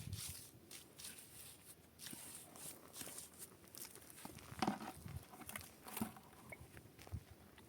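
Faint livestock sounds with scattered rustling and clicks, including two short calls about four and a half and six seconds in.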